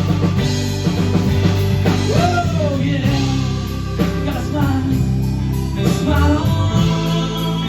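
Live rock band playing: drum kit, bass and guitar, with a voice singing over them.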